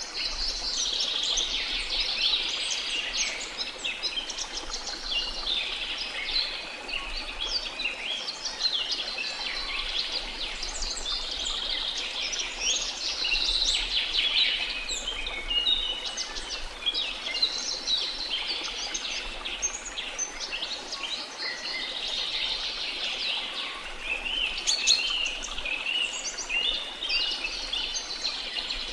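Birdsong: many small birds chirping and trilling at once, a continuous busy chorus.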